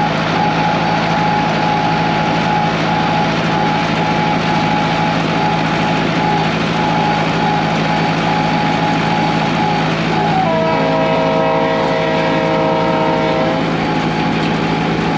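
International Harvester 574 tractor running steadily, pulling a hay rake. A chord of steady higher tones enters about ten seconds in.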